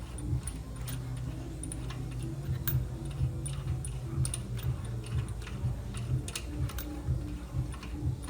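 Ratchet wrench clicking in short, irregular strokes, about two a second, as the bolts of the engine's right-side mount are loosened, over a low steady hum.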